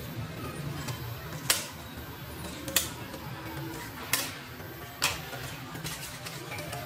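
Crispy fried methi (fenugreek) puris snapping as they are broken by hand, four sharp cracks about a second apart, showing how crisp they have fried.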